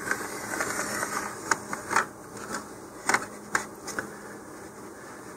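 A handful of small, irregular clicks and taps with light scratching as a line is marked along a model rocket's body tube held in a tube marking guide.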